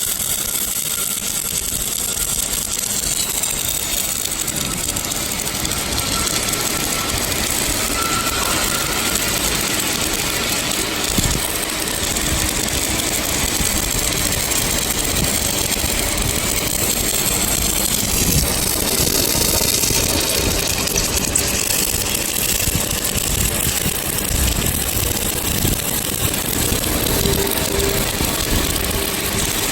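Electric welding arc crackling steadily, with a brief louder pop about 11 seconds in.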